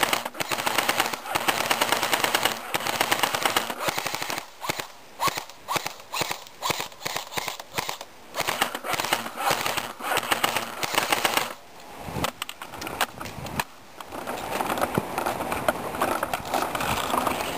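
Airsoft guns firing in rapid bursts of clicking shots, broken by short pauses, with voices in between.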